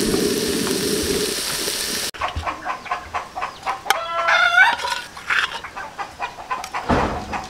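Cuttlefish stir-fry sizzling in the pot until about two seconds in, when it cuts off abruptly. Then chickens clucking, with one longer pitched call about four seconds in.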